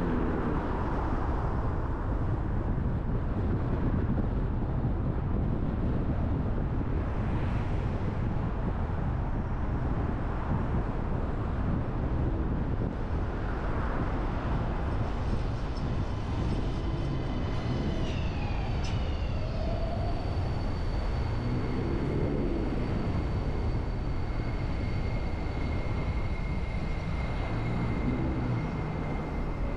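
Steady rumble of traffic and road noise while driving through city streets. About halfway through a thin high whine joins in and holds to the end, with a short falling squeal a little after it starts.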